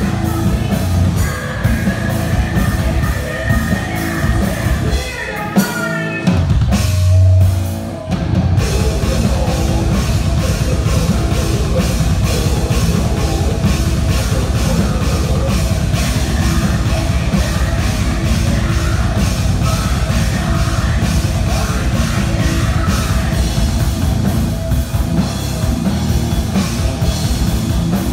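Heavy metal band playing live at full volume: distorted guitars, bass and pounding drum kit. About five seconds in, the music breaks for a rising swept sound and a deep low boom. Then the full band comes back in with fast, dense drumming.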